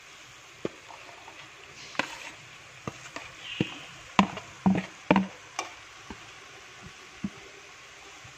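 Steel spoon and plate knocking and clinking against a steel cooking pan as coconut paste is scraped into the jackfruit: scattered sharp knocks, with the loudest few bunched around the middle.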